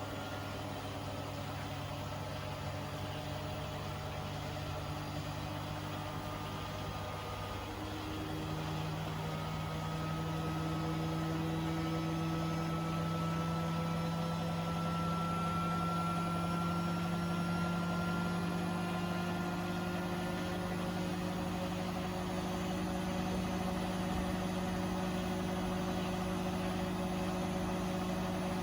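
Beko WTK104121A washing machine running, with a steady motor hum. About eight seconds in the hum steps up in pitch and gets louder as the drum speeds up, and a faint motor whine rises slowly in pitch.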